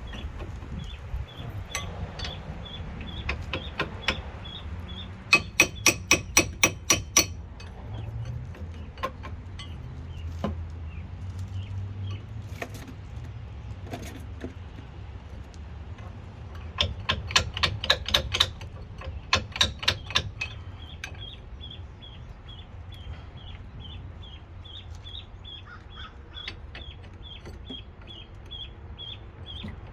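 Two runs of sharp, evenly spaced taps, about four a second and each lasting a couple of seconds, from hand work on the car's brake parts. A faint, regular high chirping carries on underneath.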